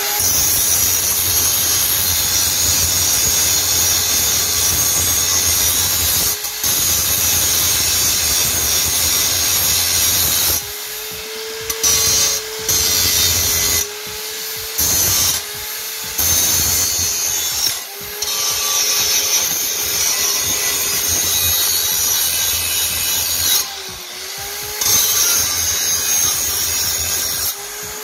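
Angle grinder cutting into a steel tube clamped in a bench vise. It runs loaded for the first ten seconds, then several times the disc comes off the metal briefly and the motor's whine rises before it bites in again.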